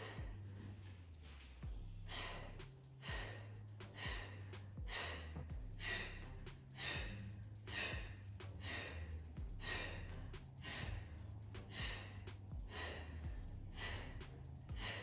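A woman breathing hard and audibly, one forceful breath about every second, in time with the reps of a seated crunch. Faint background music with a low bass line plays underneath.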